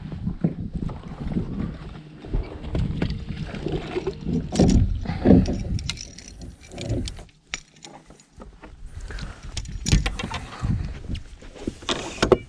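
Irregular knocks, clatter and rustling on a fishing boat as a caught bass is landed and handled for measuring.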